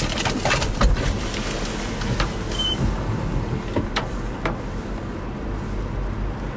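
Storm wind rumbling on the microphone around a car, with scattered sharp ticks of falling rain or hail hitting it. A brief high beep sounds about two and a half seconds in.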